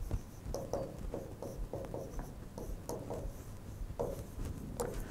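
Chalk writing on a green chalkboard: a faint run of short strokes and taps, several a second, as words are written out.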